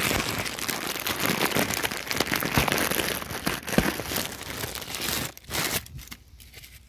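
Plastic packaging crinkling and rustling as it is handled close to the microphone, full of small crackles. It dies down about five seconds in.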